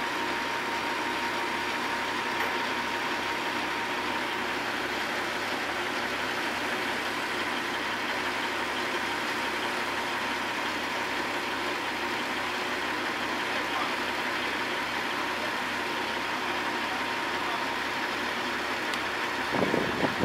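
A vehicle engine idling steadily with an even low throb, and a short louder noise near the end.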